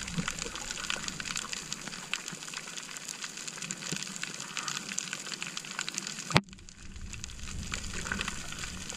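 Underwater sound picked up by a camera in its housing while swimming over a reef: a steady water hiss dense with fine crackling clicks. A sharp click comes about six seconds in, and the hiss drops briefly after it.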